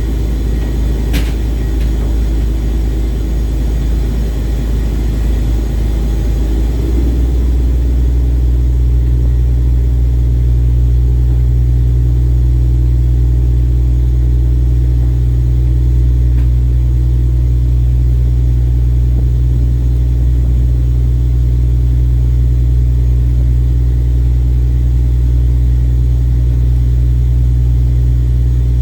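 Ship's engine running with a loud, steady low drone that settles into a steadier, slightly louder hum about seven seconds in. A single sharp click sounds about a second in.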